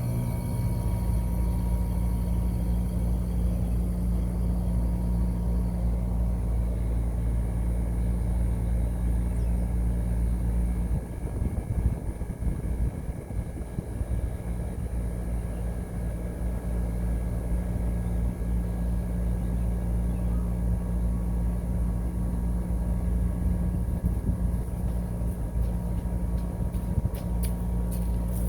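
Ruud RA13 central air-conditioner outdoor unit running: its Copeland scroll compressor and condenser fan make a steady low hum, which turns rougher and uneven for a few seconds about eleven seconds in.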